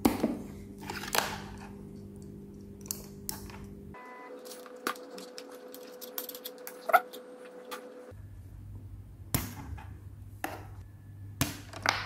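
Scattered small clicks of a plastic wire connector and a film capacitor being handled, then scissors snipping through the capacitor's wire legs, twice near the end.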